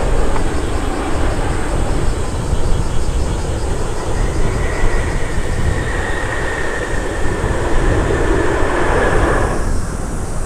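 Boeing 787's GE jet engines during touchdown and the landing roll: a loud, steady roar, with a high whine joining about four seconds in. The roar and whine cut off suddenly near the end.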